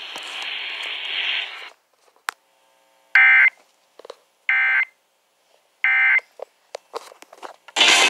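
Weather radio sending the three short Emergency Alert System end-of-message data bursts, warbling digital tones about a second and a half apart, after a brief stretch of radio hiss. Clicks and a loud rustle of the phone being handled follow near the end.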